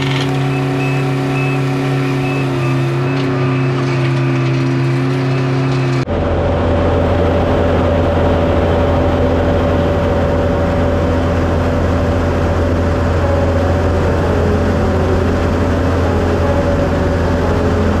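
Engines of road-paving machinery running steadily. About six seconds in the sound cuts abruptly to another machine with a lower, steady engine hum.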